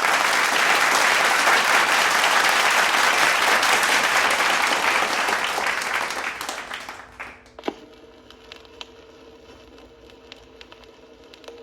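A loud, even rushing noise fades out about six to seven seconds in. It leaves the faint scattered clicks and crackle of a vinyl record's surface over a low steady hum, with one sharper click near eight seconds.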